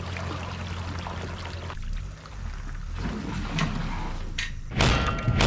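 A vehicle engine idling at a boat ramp, with water around a submerged trailer. After a break about two seconds in come a few sharp clicks, then a loud hit near the end as an intro sound effect begins.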